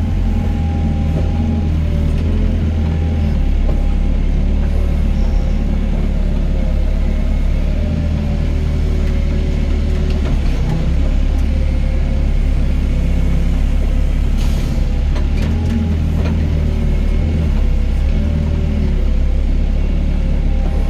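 Doosan DX55 mini excavator working, its diesel engine running steadily under load while the pitch of its hydraulics shifts as it digs and loads soil. A few faint knocks come about two-thirds of the way in.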